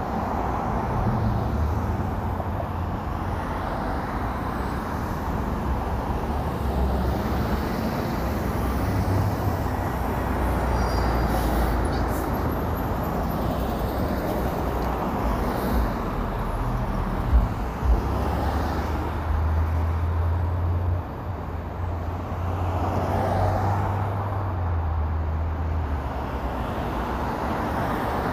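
Road traffic: a steady rumble and tyre hiss of vehicles on a road, swelling and easing as they pass. Two brief thumps come about two-thirds of the way in.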